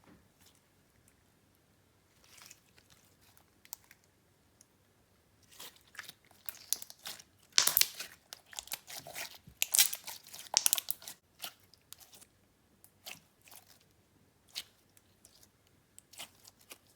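Clear slime with sprinkles and Fimo slices mixed in, worked by hand: scattered sticky crackles, clicks and pops, sparse at first and densest around the middle.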